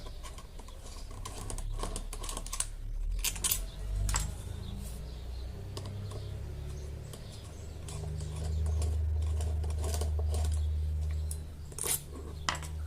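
Light clicks and taps of a screwdriver and small metal parts as the four corner screws are taken out of an Arno fan's motor casing. A low hum comes up in the second half and holds for a few seconds.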